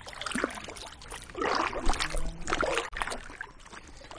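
Kayak paddle strokes in choppy lake water: splashing and dripping from the blades, with two louder surges about a second apart in the middle.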